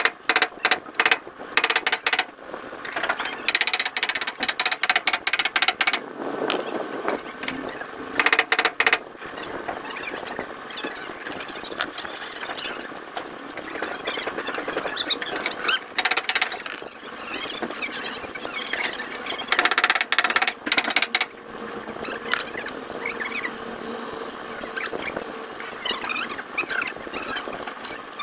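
Several bursts of rapid tapping on car bodywork, each a quick run of sharp strikes lasting one to two seconds, with a busy workshop background in between.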